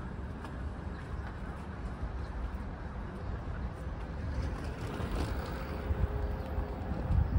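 City street traffic noise: a steady low rumble of passing vehicles, with a faint steady whine for a second or two past the middle and a couple of louder low thumps near the end.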